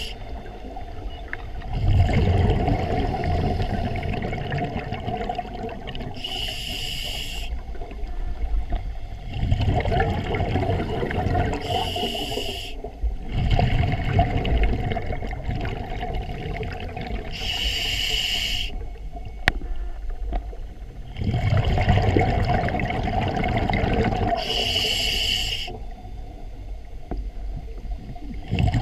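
Scuba diver breathing through a regulator, heard underwater: four short hissing inhales about six seconds apart, each followed by a few seconds of low rumbling, gurgling exhaled bubbles.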